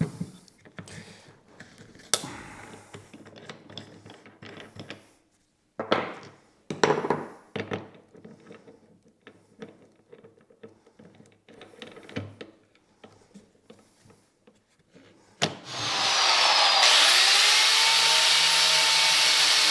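Scattered clicks and knocks as an accessory is fitted onto a hand grinder, then the hand grinder switches on about 16 seconds in and runs loud and steady.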